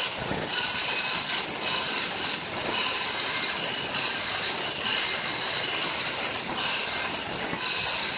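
Electric angle grinder with an abrasive disc grinding into a block of andesite, hollowing out the bowl of a stone mortar. A continuous high screeching of disc on stone that swells and eases over and over as the grinder is worked across the hollow.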